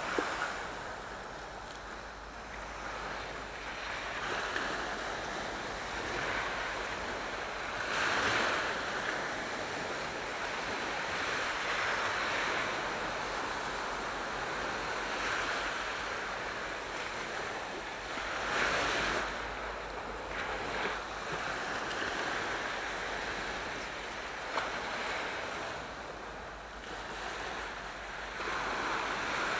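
Aegean Sea waves washing in, a steady hiss of surf that surges every few seconds as each wave breaks.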